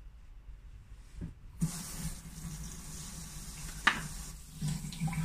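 Bathroom basin tap turned on about a second and a half in, water running into the sink. A sharp clack about two seconds later.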